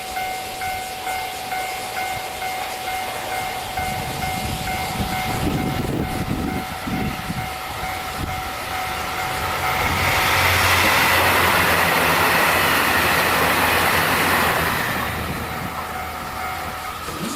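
Level-crossing warning bell ringing with a steady repeating ding about twice a second. From about ten seconds in, a train passes, its wheels on the rails loudest for about five seconds, then fading to a low rumble.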